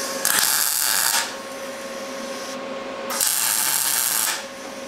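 MIG welder laying two short tack welds on steel pipe, each about a second long and about two seconds apart, over a steady hum.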